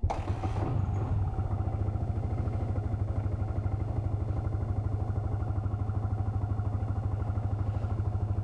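Motorcycle engine starting up, with a short burst as it catches, then settling into a steady, evenly pulsing idle.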